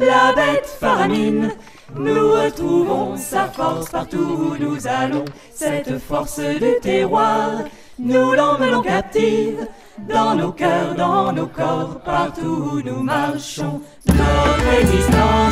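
A group of voices singing a song unaccompanied, in phrases with short breaths between them. Near the end, instruments with a deep bass join in.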